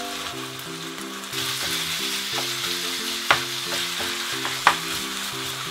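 Raw chicken mince sizzling in hot oil in a non-stick wok while a spatula stirs and breaks it up, the spatula knocking against the pan twice a little past halfway.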